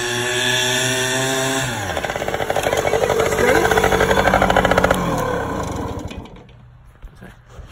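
Yamaha Tri-Zinger YT60 three-wheeler's small two-stroke single-cylinder engine, running steadily at speed, then dropping to a pulsing idle about two seconds in. It winds down and stops about six seconds in.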